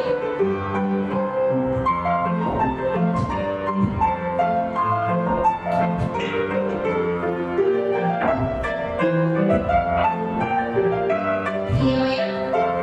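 Piano music playing a rhythmic accompaniment for a folk-dance barre exercise.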